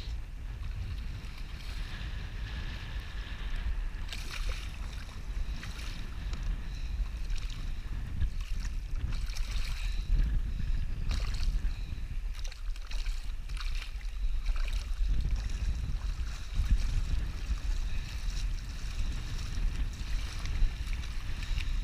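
Steady wind rumbling on the microphone, with light water splashes now and then as a small hooked striped bass thrashes at the surface in shallow water.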